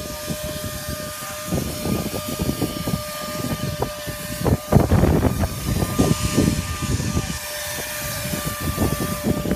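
Spray rig for a cold fluid-applied, chopped-fiberglass roof coating running with a steady whine while coating is sprayed, over uneven low rumbling.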